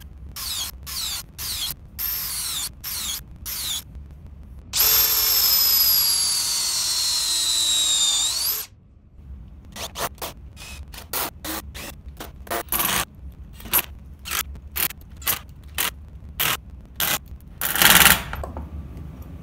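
Cordless drill boring holes into a wooden block, run in short trigger bursts that wind down in pitch. About five seconds in it makes one longer run of nearly four seconds, its pitch sagging slowly under load. Then it fires a quick string of short bursts, driving screws into the block.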